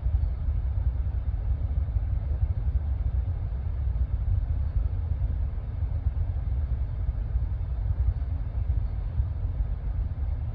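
Wind noise on the microphone: a steady, fluttering low rumble of moving air buffeting the mic.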